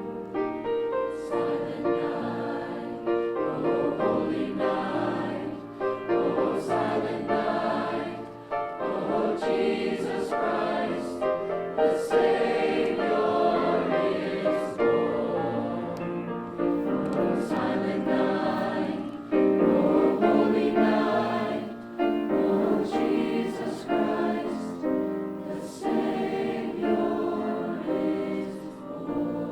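A high school choir singing held notes.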